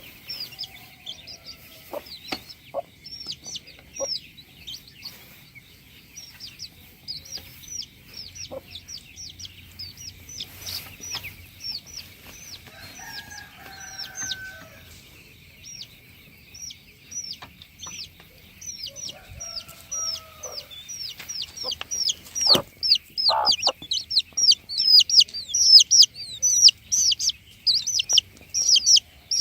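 Flock of chickens: dense, rapid high-pitched chirping with a few lower clucks and calls mixed in, the chirping growing much louder in the last several seconds.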